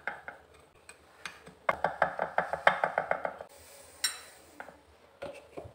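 Metal spoon clinking and scraping against a glass baking dish while pressing crushed Oreo crumbs flat, with a quick run of ringing clinks, about five a second, lasting nearly two seconds in the middle.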